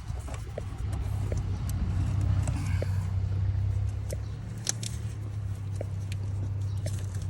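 A steady low mechanical hum, like a running vehicle engine, with scattered light clicks and metal taps.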